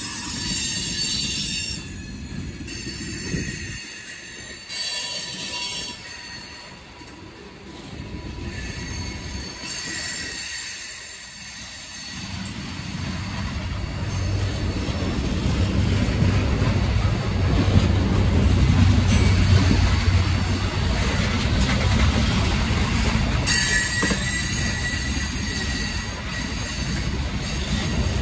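Loaded coal cars of a freight train rolling past, steel wheels rumbling over the rails, with high-pitched wheel squeal coming and going. The rumble grows louder about halfway through.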